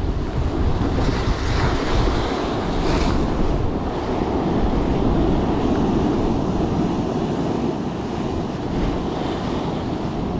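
Sea surf breaking and washing over a rocky shore, with strong wind buffeting the microphone in a steady low rumble.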